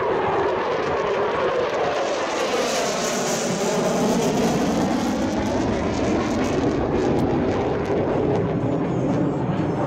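F-16 fighter jets passing overhead: loud, steady jet noise whose tone sweeps up and down as they go by.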